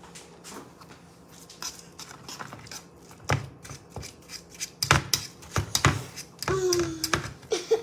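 Irregular taps, knocks and clatter of kitchen utensils and dishes being handled, sparse at first and busier and louder from about halfway, with a brief falling squeak near the end.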